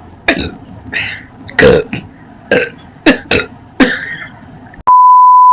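A person burping repeatedly after gulping a cold fizzy drink: about seven short burps in four seconds. About five seconds in, a loud, steady electronic beep tone starts.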